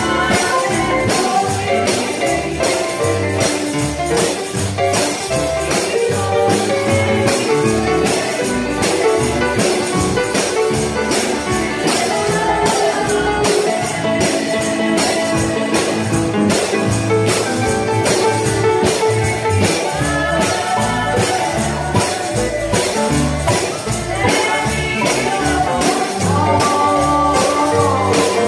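Live gospel music: instruments play a melody over a steady, evenly spaced jingling percussion beat.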